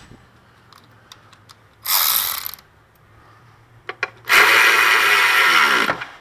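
Cordless electric ratchet running on a bolt in two bursts: a short one under a second long about two seconds in, then a longer run of nearly two seconds that winds down in pitch as the trigger is released near the end.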